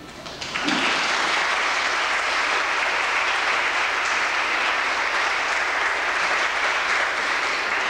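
Audience applauding in a large hall, the clapping starting about half a second in and holding steady.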